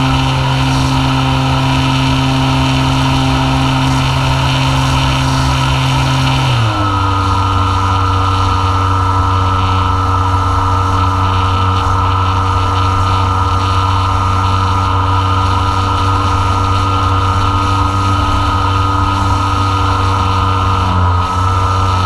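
Electric motor and propeller of an Apprentice S 15e RC plane, heard from a GoPro on the airframe: a steady whining drone with wind rush. About six and a half seconds in, the pitch drops sharply as the throttle is eased back, then holds steady at the lower speed.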